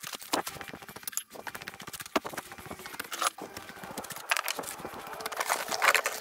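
Footsteps on gravel mixed with the clinking and rattling of metal diving regulator fittings and hoses being carried and handled, as a run of irregular clicks and knocks.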